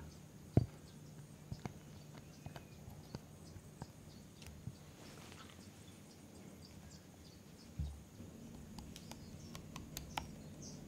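Cheesecake batter poured into a stainless steel cake ring and spread with a silicone spatula: scattered soft clicks and taps, with two dull thumps, about half a second in and near eight seconds in, over a faint steady hum.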